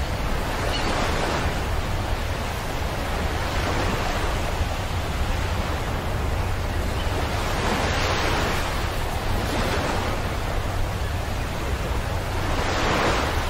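Ocean surf: waves washing onto a shore, a steady rush with a low rumble that swells and falls every two to four seconds.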